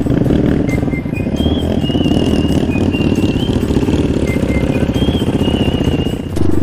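Motorcycle engine running at low revs with a steady pulse, getting louder about six seconds in.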